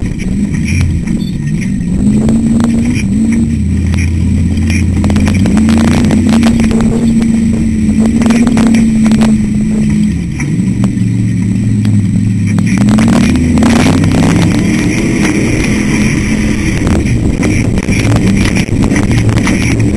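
Off-road race car engine heard from inside the car, its revs rising and falling as it is driven hard over rough desert ground, with scattered knocks and rattles from the chassis.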